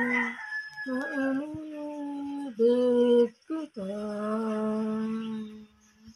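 A woman singing unaccompanied in a few long, level held notes with short breaks between phrases, unsure of the song and the melody.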